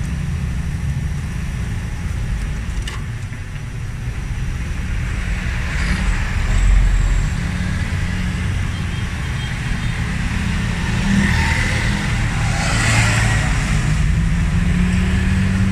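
Toyota Camry ACV40's inline-four engine idling steadily, with a low bump about seven seconds in.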